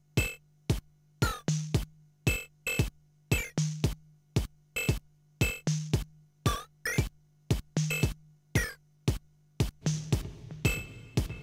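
Modular synthesizer playing a repeating electronic drum pattern of sharp, clicky hits over a steady low synth drone. About ten seconds in, a hissy wash swells in behind the pattern as effects are brought in.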